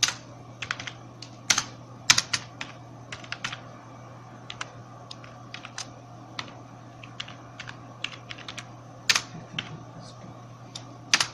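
Typing on a computer keyboard: irregular runs of key clicks with pauses, a handful of keystrokes much louder than the rest. A steady low hum runs underneath.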